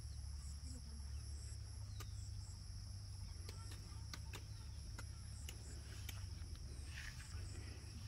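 Insects droning steadily at a high pitch in a rice paddy, with short higher chirps here and there, over a constant low rumble and scattered sharp clicks.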